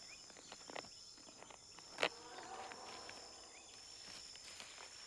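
Tropical forest ambience: a steady high drone of insects with scattered small clicks and rustles, and one sharp snap about two seconds in.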